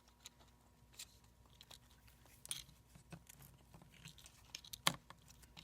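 Faint scattered clicks and light scraping of a small circuit board and its cable being handled and worked loose from a laptop's aluminum case, with one sharper click near the end.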